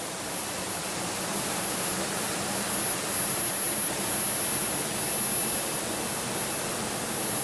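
Waterfall rushing steadily, with a thin, steady high-pitched tone over the noise.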